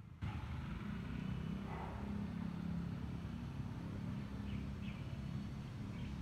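A motor engine running with a steady low hum, which starts suddenly just after the beginning and carries on unchanged; a few faint short high chirps sound above it.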